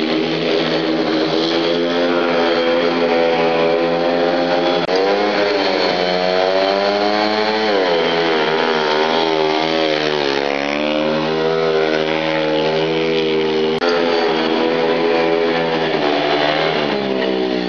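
Speedway motorcycle's single-cylinder methanol engine running hard as the bike is ridden around the dirt track. The pitch keeps rising and falling with the throttle through the straights and bends, with a sharp drop just before the middle.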